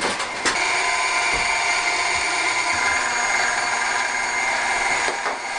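KitchenAid stand mixer's motor running steadily, driving its pasta sheet roller attachment as a sheet of ravioli dough is fed through.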